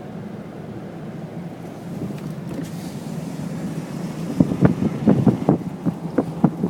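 A vehicle running with a steady low drone through snow. From about four seconds in comes a quick irregular run of sharp knocks and rattles.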